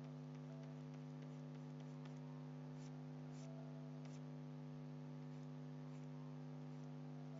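Steady low electrical mains hum, with a few faint clicks about three and four seconds in.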